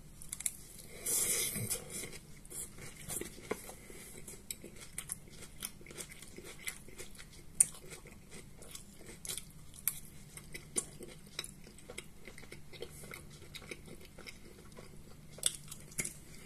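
A person chewing fried meat pastries: soft mouth and chewing sounds with many small irregular clicks and smacks, and a short, louder breathy noise about a second in.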